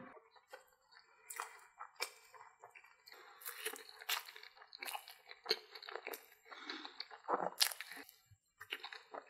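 A person chewing a mouthful of corn dog, with irregular crunches and clicks of the mouth and the fried batter.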